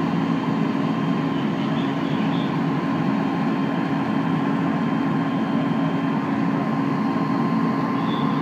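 Parked fire apparatus diesel engines running at a steady idle: a loud, unbroken low drone with a thin steady whine above it.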